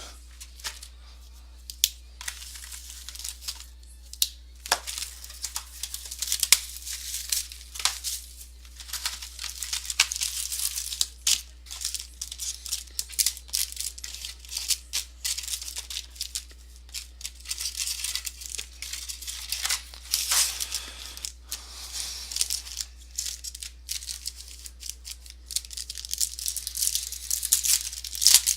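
Trading-card box and pack wrappers being torn open and crinkled by hand, with cards handled: irregular crackling, rustling and sharp clicks throughout.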